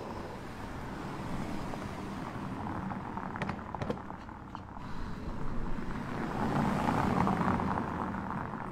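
Bentley Flying Spur's 6-litre twin-turbo W12 pulling away and driving off, a low engine and tyre rumble that swells to its loudest near the end, with a few sharp clicks about halfway.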